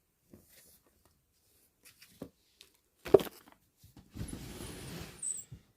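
Handling noises as dog treats are dealt out: a few light clicks, a sharp knock about three seconds in, then about a second of rustling.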